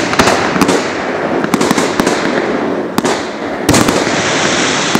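Aerial fireworks shells bursting: several sharp bangs, about six in five seconds, over a continuous dense crackle.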